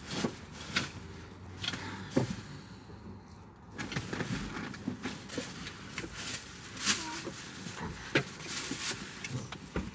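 Scattered light clicks and rustles of a phone being handled in a car cabin, over a faint low steady hum.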